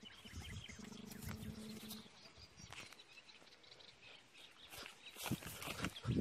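Faint footsteps squelching through wet mud and brushing through dry grass, louder near the end. A faint steady droning tone of unclear source sounds during the first two seconds.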